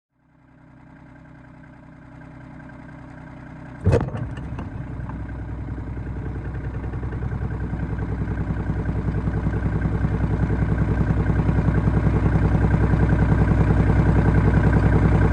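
RK25 compact tractor's diesel engine running with a fast, even pulse, growing steadily louder. A single sharp metal clank sounds about four seconds in.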